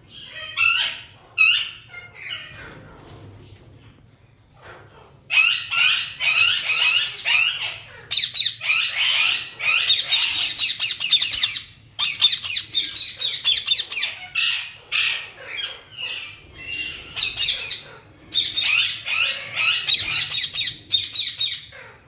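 Lutino Indian ringneck parakeets calling: rapid runs of loud, high-pitched calls. There is a short burst in the first two seconds, then long runs from about five seconds in, broken by a few brief pauses.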